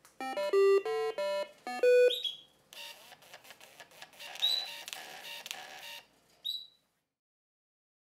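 A doorbell's small speaker playing a short beeping electronic tune of about eight notes, then a small thermal printer buzzing steadily for about three seconds as it prints, ending with a brief click.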